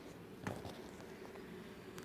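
Faint room background in a lull in a sleeping man's snoring, with one short soft click about half a second in.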